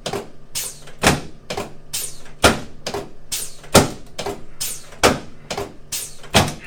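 A steady series of sharp knocks, about two a second, over a dozen in all, from percussive work on a patient lying on a chiropractic table.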